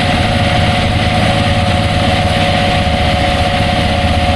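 A vehicle engine running steadily, with a constant pitched whine over a low rumble.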